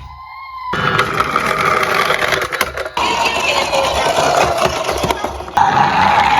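Emergency-vehicle siren wailing, a slowly gliding tone, over a loud rattling, engine-like noise. The sound changes abruptly about a second in, near three seconds and again past five seconds.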